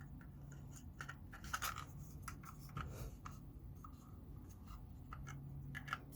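Faint, scattered plastic clicks and scratches of a wireless mouse being handled and pried apart by hand.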